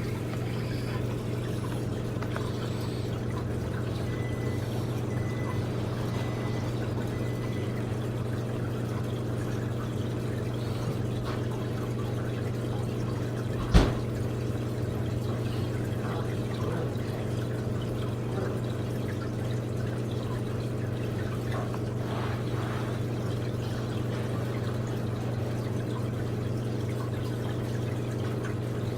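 Steady low machine hum, with one sharp knock about halfway through.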